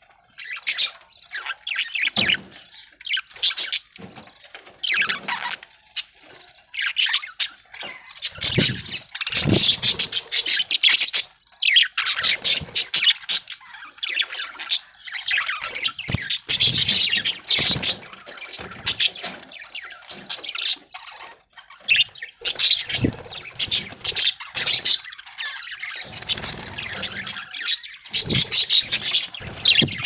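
A flock of budgerigars chattering and chirping almost without a break, many quick warbling calls overlapping.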